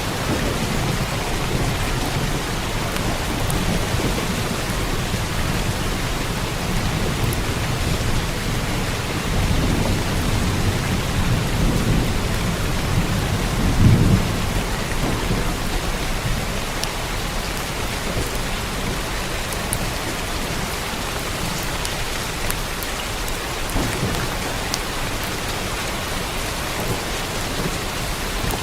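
Steady heavy rain with a rumble of thunder that swells and fades through the middle, its loudest clap about halfway through.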